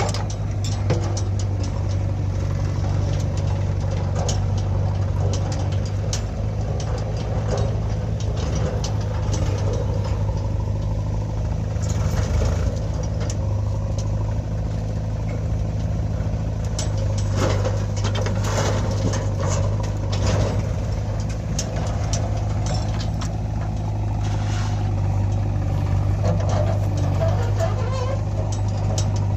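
Diesel engine of a JCB 3DX backhoe loader running steadily while digging, with scattered sharp clanks and knocks.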